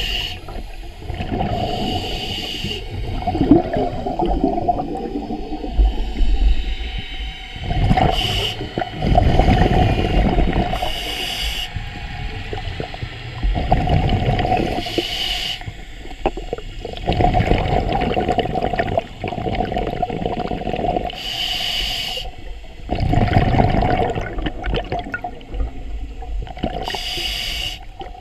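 Scuba diver breathing through a regulator, heard underwater: a short hiss with each inhalation, about six times, and bubbling exhalations between them. A steady hum runs underneath.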